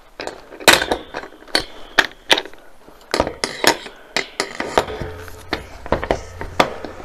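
Metal joints and parts of a spring-loaded, desk-clamped overhead camera arm clacking and knocking as the arm is handled and fitted into place: a dozen or more sharp, irregular knocks, the loudest a little under a second in.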